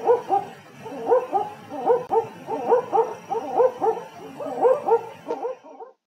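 Owl calling: a rapid run of short hooting notes that rise and fall, mostly in pairs, about three a second, stopping just before the end.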